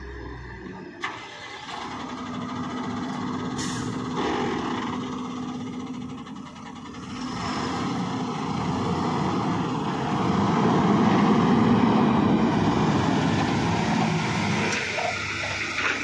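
Heavy tipper truck's diesel engine running and working harder, getting louder from about 7 seconds in. A brief hiss of air sounds about 4 seconds in.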